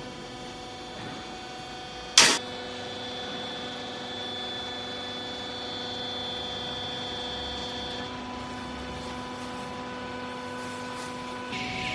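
Hydraulic clothing baler's electric motor and pump running with a steady hum, with one sharp metallic clank about two seconds in.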